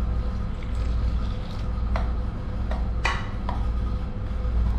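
Water poured from a steel cup into a bowl of gram flour, then a steel spoon stirring the wet batter, with a few clinks of the spoon against the ceramic bowl, one about three seconds in ringing briefly. A steady low hum runs underneath.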